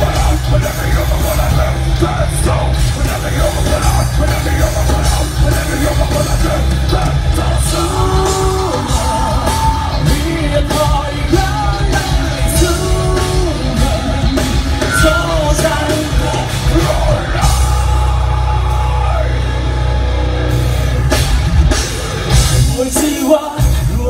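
Rock band playing live through a stage PA: electric guitars, bass guitar and drums, with a vocalist singing over them. The heavy bass drops out briefly near the end.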